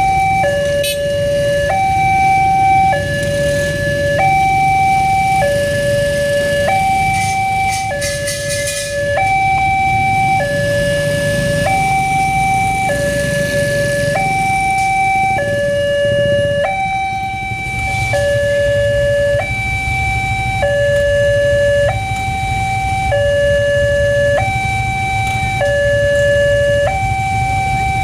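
Alkmaar-type electronic level-crossing siren sounding its two-tone warning, switching between a lower and a higher tone about every second and a quarter: the signal that a train is approaching and the crossing is closed. A low rumble runs underneath.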